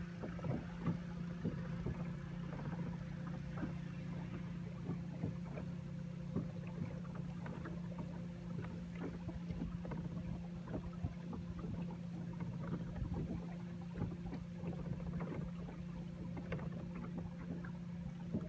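Small boat motor running steadily at trolling speed, a constant low hum, with scattered light ticks throughout.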